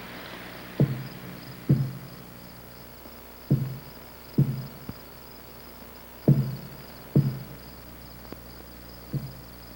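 Dull, hollow knocks in pairs about a second apart, each pair a few seconds after the last, with a single knock near the end.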